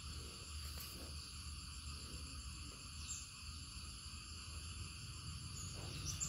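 Faint outdoor ambience: a steady high-pitched insect drone over a low rumble.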